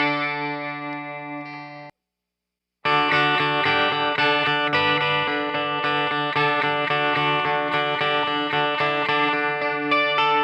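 Electric 12-string guitar playing. A held chord rings and decays, then cuts off to silence about two seconds in. About a second later it strums a new run of chords.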